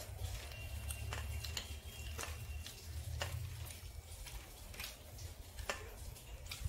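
Scattered light clicks and taps of people eating by hand from steel plates, over a low steady rumble.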